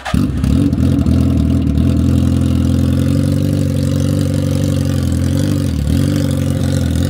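Motorcycle engine running steadily. It comes in suddenly at the start and wavers briefly near the end.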